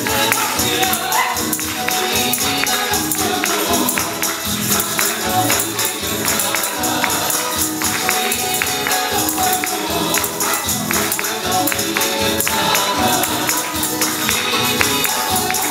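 Chilean cueca folk music with a steady tambourine beat and singing.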